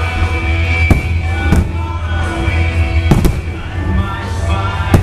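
Aerial firework shells bursting, about five sharp bangs, two of them in quick succession near the middle, over music that plays throughout.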